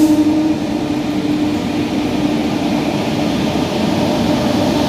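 Electric locomotive pulling an express passenger train into a station: a steady whine of cooling blowers and running noise over a low hum. It grows brighter and a little louder as the engine draws near, about three seconds in.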